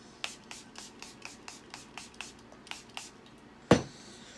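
Setting spray bottle being handled: a quick run of light clicks, about four a second, then a single loud thump near the end.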